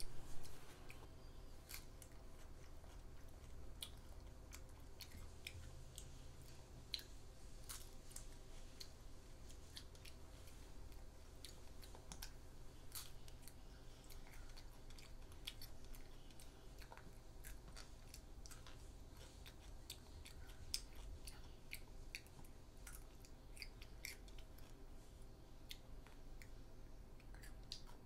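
A child chewing crisp raw lettuce, herbs and cucumber, with many small scattered crunching and mouth clicks over a faint steady low hum.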